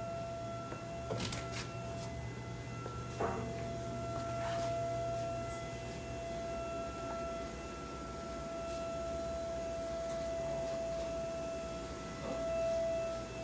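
Running shop machinery: a steady high whine over a low hum. A few light clicks and one sharper knock come in the first few seconds, and the whine swells briefly near the end.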